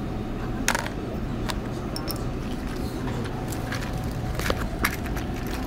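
Inside a Seoul Metro Line 4 subway car: a steady low rumble from the train, with several sharp clicks and taps of small plastic items being handled, the loudest about a second in and near the end.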